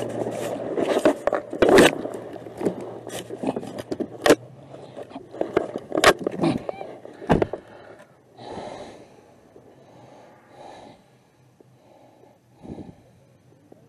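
Handling noise on a body-worn camera as the wearer climbs into a car seat: clothing scraping against the microphone and a rapid series of knocks and clicks for about the first seven seconds, then only soft rustling as the wearer settles. A low steady hum fades out about four seconds in.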